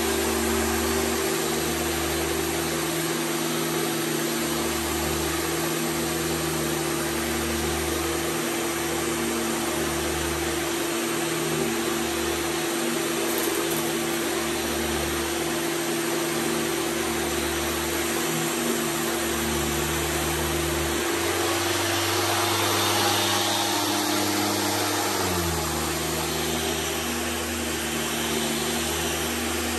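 Vintage Hoover canister vacuum cleaner running steadily on carpet, with its powered floor nozzle pushed back and forth: a motor hum under a wide rush of air. The low end swells and fades every couple of seconds. About two-thirds of the way in, the pitch of the hum shifts for a few seconds, then settles back.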